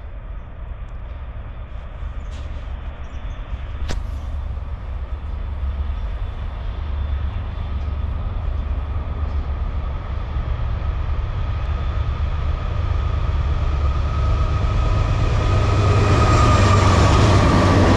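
Norfolk Southern diesel freight train approaching, its low engine rumble growing steadily louder until the lead locomotive reaches the camera near the end. A thin high steady whine rides over the rumble in the second half, and there is a single sharp click about four seconds in.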